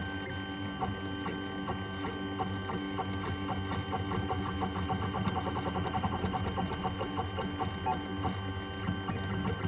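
Small Tina 2 desktop 3D printer printing PLA: its stepper motors hum and whine, with rapid ticking as the print head and bed make short moves.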